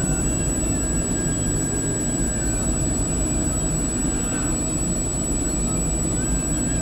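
Steady engine and tyre rumble inside a moving car, picked up by the dashcam's built-in microphone, with a thin constant high-pitched whine.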